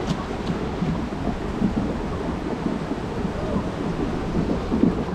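Wind buffeting an action camera's microphone as a steady low rumble, over water rushing down an open water-slide chute.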